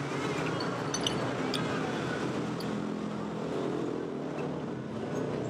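Steady road traffic noise, with a few light clinks of metal cutlery against a ceramic soup bowl about a second in.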